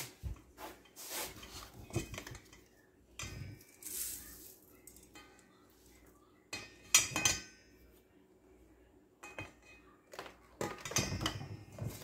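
Stainless-steel sieve, mixing bowls and a coffee grinder's cup clinking and knocking together as ground corn is emptied into the sieve: a string of separate clinks with gaps between, the loudest knock about seven seconds in.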